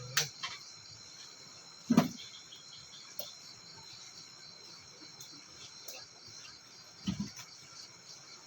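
Steady, finely pulsing high-pitched chorus of insects, with a sharp click at the start, a loud brief knock about two seconds in and a softer double thump about seven seconds in.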